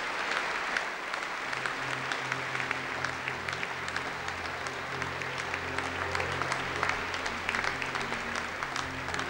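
Concert-hall audience applauding, a dense steady clatter of many hands clapping. Low sustained musical notes sound underneath from about a second and a half in.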